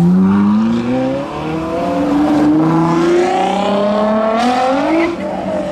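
High-performance car engine accelerating hard, its revs climbing in two long rising pulls through the gears, then dropping off sharply near the end.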